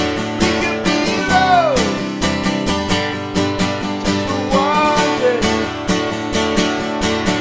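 Acoustic guitar strummed in a steady, even rhythm with no singing. A few high sliding notes rise and fall over the strumming about a second in and again near the middle.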